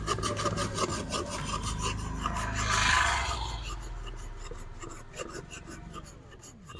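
Block of ice rubbed back and forth over the blade of a wooden hand ice-shaving box, a repeated rasping scrape of ice being shaved into snow for an ice gola. Loudest about three seconds in, then growing quieter.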